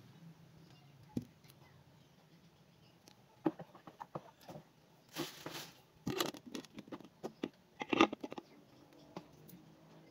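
Plastic containers being handled: a pitcher, bottle and basin knocking and clicking against each other while dishwashing liquid is scooped and poured. A short swish comes about five seconds in, and the loudest knocks about eight seconds in.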